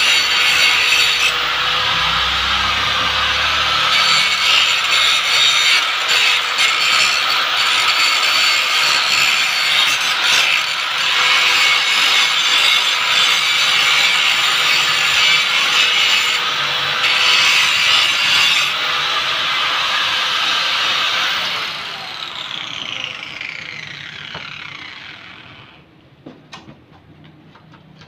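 Corded angle grinder grinding the steel frame of a flower pot stand, a steady harsh grinding of wheel on metal. About 21 seconds in it is switched off and its whine falls away over a few seconds, followed by a few light knocks.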